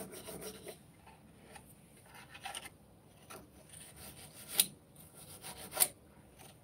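A small brush scrubbing dust from the metal feed dogs and bobbin area of a Bernina sewing machine: faint scratchy rubbing, with two sharp clicks about a second apart past the middle.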